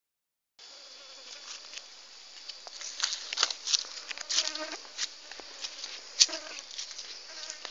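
Steady high insect buzz with irregular crunching footsteps on dry ground, the crunches louder from about halfway through.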